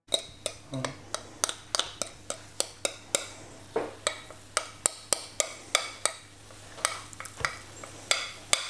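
Spoon clinking against a mixing bowl while batter is ladled out, about three sharp clicks a second, over a low steady hum.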